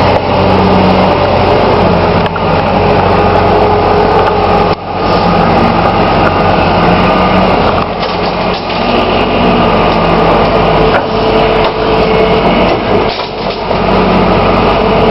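New Holland skid steer's diesel engine running loud under work, its note dipping and picking up again a few times.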